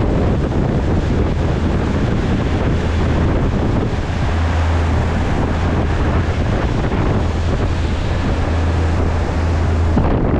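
Wind buffeting the microphone over the steady low drone of twin Mercruiser 5.7-litre V8 sterndrive engines driving a boat at speed, with the rush of the wake behind.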